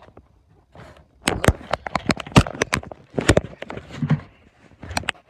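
Handling noise on a phone microphone as it is grabbed and jostled against clothing: a rapid clatter of sharp knocks and clicks with rustling from about a second in, a short pause, then more knocks near the end.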